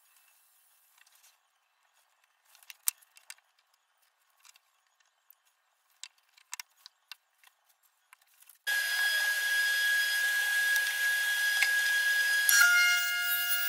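Scattered light clicks and knocks of bar clamps and wood being handled, then a table saw starts abruptly, running with a steady high whine. Near the end the blade cuts through a small pine piece, adding higher tones that drop away as the cut finishes.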